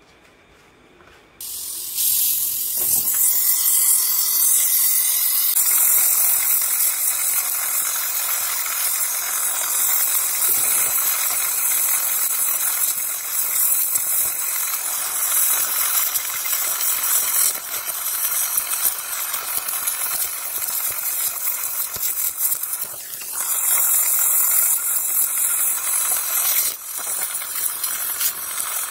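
Gas welding torch flame hissing steadily as it heats an aluminium engine case, starting abruptly about a second and a half in and dipping briefly twice near the end.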